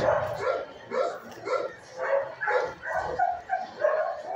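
Dog barking repeatedly, about two barks a second.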